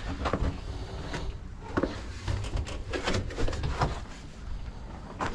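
Scattered knocks and clicks over a low rumble: a person moving about and handling things, with a door being opened and shut.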